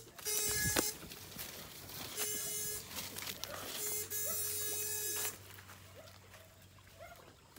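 Backpack electrofishing shocker buzzing in three short bursts, a steady high electric buzz switched on and off in the stream to stun eels.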